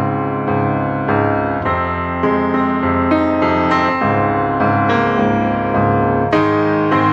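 Background music: a piano playing a gentle melody over chords, with a new note or chord about every half second.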